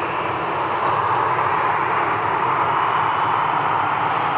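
Boeing 737-800's CFM56 jet engines running as the airliner rolls slowly along the runway: a steady, loud rushing whine that grows a little louder about a second in.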